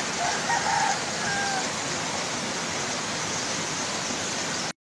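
Fast-flowing floodwater rushing, a steady, even wash of water noise that cuts off suddenly near the end.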